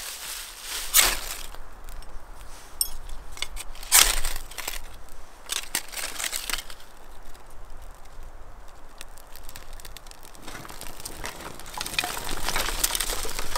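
Close handling of camp gear and fire-lighting material: scattered crunching and crinkling, with two sharp knocks about one and four seconds in. In the last few seconds a small wood fire crackles as dry twigs are laid onto it.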